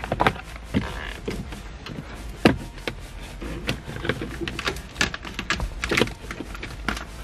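Plastic interior trim on a pickup's A-pillar and dash being pulled off and handled: a string of irregular clicks and knocks as the clips and panel pieces let go, the sharpest about two and a half seconds in.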